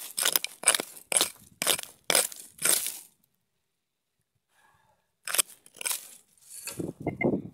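A small hand hoe chopping into hard, dry, stony ground full of quartz, about two sharp strikes a second. After a pause of about two seconds the chopping starts again for a few more strikes.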